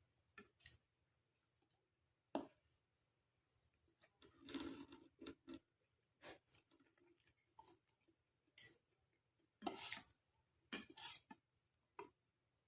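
Eating sounds from a bowl of bakso: scattered sharp clicks of cutlery against the bowl and chewing, with a louder clink about two seconds in and short noisier stretches around the middle and near the end.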